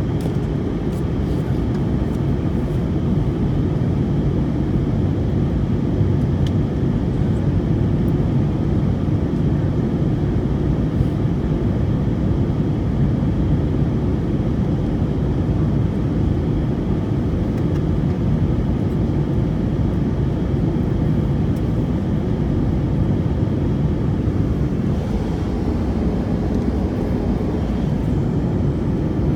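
Steady cabin noise of an airliner in cruise, heard from a window seat: an even, deep rush of engines and airflow that holds level throughout.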